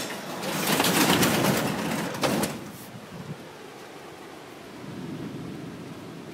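Overhead garage door being pulled shut by hand, rattling and rumbling along its tracks for about two seconds and ending in a knock. Then a steady, quieter rush of wind.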